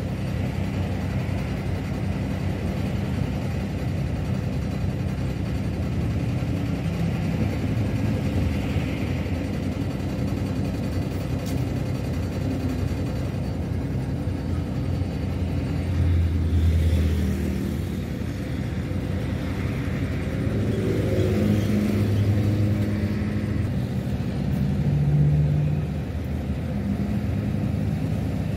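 Vehicle engine running in slow stop-and-go traffic, heard from inside the vehicle: a steady low drone that swells a few times as it pulls away, most strongly about 16 seconds in and again around 21 to 25 seconds.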